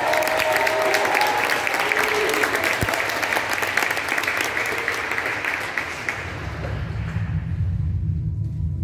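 Audience applauding in a large hall, the clapping dying away about six seconds in. Near the end a low, sustained electronic tone begins.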